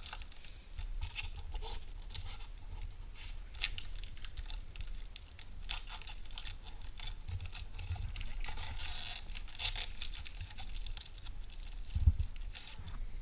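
Foil trading-card pack being torn open and peeled back by hand, crinkling and crackling in short bursts, with a single soft thump about twelve seconds in.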